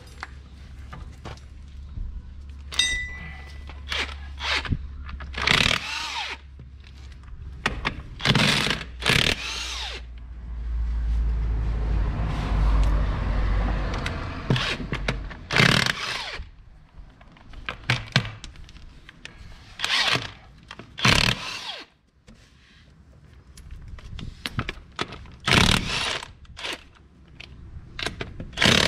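Power impact wrench run in short bursts of about half a second, about nine times, loosening nuts on a Kubota 5040 tractor's front wheel and axle, with small knocks of tools between the bursts. A low steady hum runs underneath and stops about two thirds of the way through.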